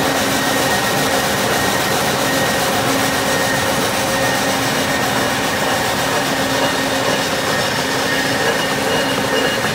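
Steel coil slitting line running: strip steel feeding through the rotary slitter knives and rewinding as narrow strands, a loud steady machine noise with a low hum and a faint high whine.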